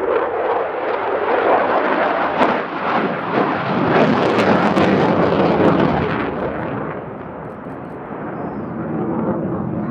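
F-16AM Fighting Falcon's single Pratt & Whitney F100 turbofan at high power: a loud rushing jet noise with sharp crackles. It builds to its loudest about four to six seconds in, then eases off.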